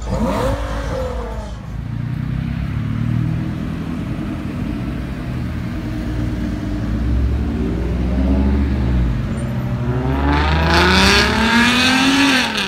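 A car engine close by: a brief rev near the start, then a low steady engine note as the car rolls past, then the engine revving higher and higher over the last few seconds as it accelerates.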